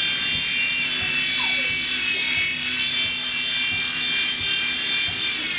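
Whine of a PicooZ toy helicopter's small electric rotor motor, steady and high-pitched.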